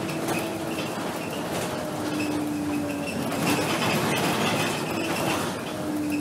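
Cabin noise inside a 2010 Scania K270 city bus on the move: the diesel engine and drivetrain running, with a few held tones that step in pitch over road noise and light rattles from the cabin.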